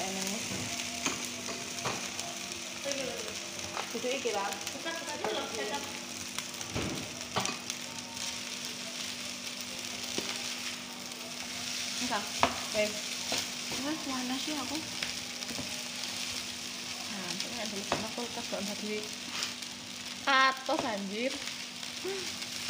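Fried rice with bean sprouts and egg sizzling steadily in a nonstick frying pan, stirred and tossed with a slotted nylon spatula that scrapes and taps against the pan.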